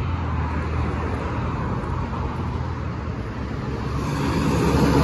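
Steady outdoor rumble of road traffic with a low hum underneath, growing a little louder near the end.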